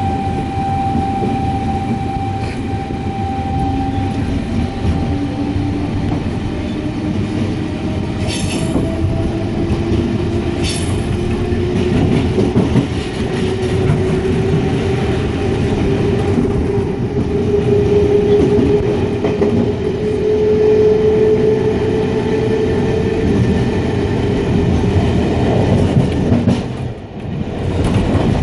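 Electric passenger train heard from inside the carriage: steady wheel-and-track rumble, with the traction motors' whine rising slowly in pitch as the train accelerates. Two sharp clicks come a third of the way in, and the noise dips briefly near the end.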